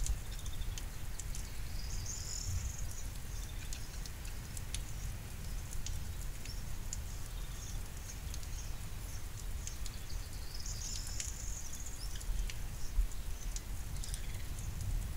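Rain pattering, with scattered clicks of drops close by and a steady low rumble underneath; a small bird sings a short high phrase twice, about two seconds in and again about ten seconds in.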